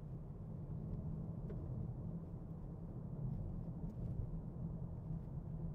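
Steady low road and tyre rumble inside the cabin of a 2024 Audi Q2 driving over a bumpy road, with a few faint knocks from the bumps, which the suspension is soaking up well.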